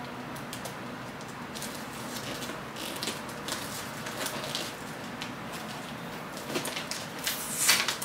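Wrapping paper rustling and crackling as it is cut and peeled off a cardboard box, in short scattered crinkles that grow denser and louder near the end.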